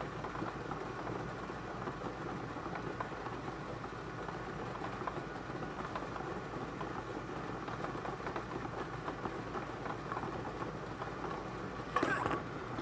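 Bingo ball machine running, the balls rattling and clicking against each other in a steady clatter. A brief louder clatter near the end marks the next ball being drawn.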